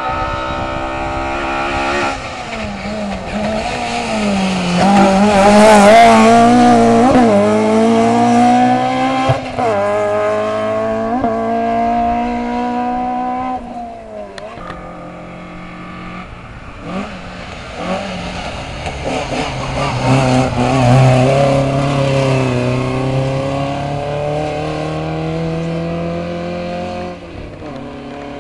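Hillclimb competition cars accelerating hard up a mountain road. Each engine revs up and drops back at every gear change. The first car is loudest about six seconds in, and the sound eases off around the middle before a second car revs up through its gears.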